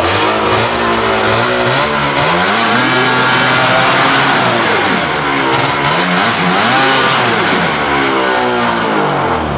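Ski-Doo Blazer snowmobile's two-stroke engine running and being revved up and down repeatedly, its pitch rising and falling with each rev.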